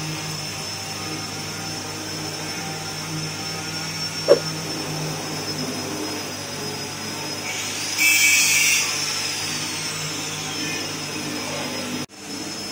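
Rotary drum maggot dryer running, its drum and fan giving a steady hum with a thin high whine. A short sharp sound comes about four seconds in, and a louder hiss lasts about a second two-thirds of the way through.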